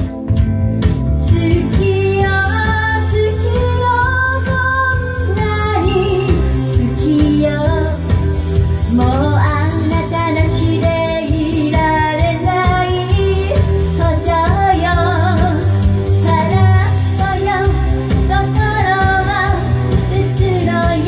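Woman singing a Japanese 1970s idol pop song into a microphone over a backing track with a steady beat; the vocal comes in about two seconds in, after a short instrumental stretch.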